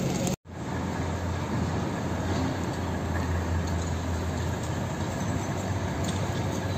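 Steady low rumble of a heavy truck's engine running at idle, under general city street noise. The sound cuts out for a moment just after the start.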